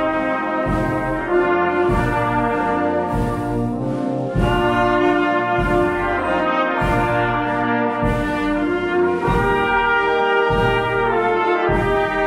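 Brass band of trumpets, trombones and saxophones playing full sustained chords over a steady beat, inside a church.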